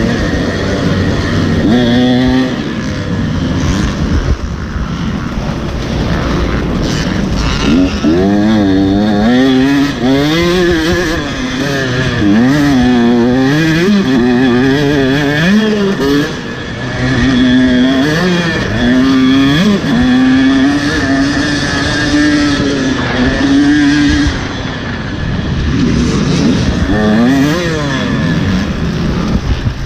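Motocross bike engine revving up and down as it is ridden, its pitch climbing and falling every second or two, with brief drops in throttle about sixteen and twenty-four seconds in.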